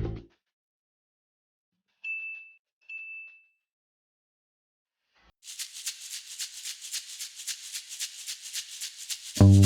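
Intro sound effects: two short high chimes, then a shaker-like rattle in a steady rhythm that grows louder, with full music starting just before the end.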